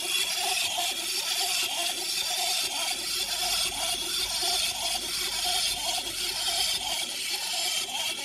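Murray mummy Happy Meal toy's built-in walking mechanism running, a steady rasping whir with a regular clatter about twice a second as the figure waddles across the tabletop.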